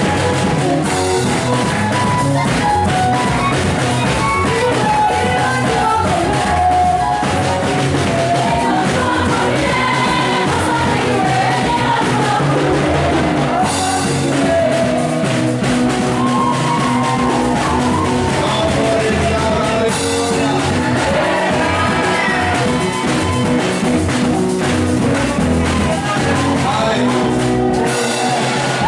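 Gospel praise music: voices singing over a band with drums, at a steady beat.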